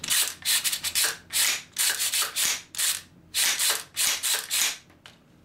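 AR-15 action being cycled by hand: the bolt carrier slides back and forward repeatedly against a newly fitted flat-wire buffer spring, metal rasping on metal. There are about nine quick sliding strokes, which stop near the end.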